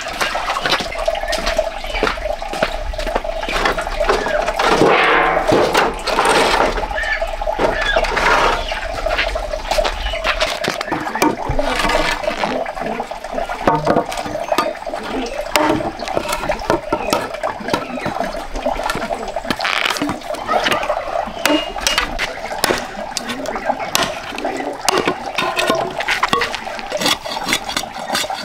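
Water running from an outdoor tap and splashing onto a concrete floor, then a string of sharp knocks from a machete chopping a wooden branch on a block.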